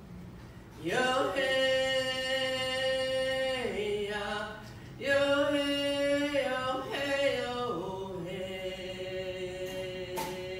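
A woman singing an unaccompanied, chant-like song in long held notes that step down in pitch at the ends of phrases, with a short break a little before the middle.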